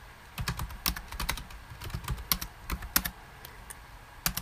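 Typing on a computer keyboard: quick, irregular keystroke clicks as a line of code is entered, easing into a short lull near the end.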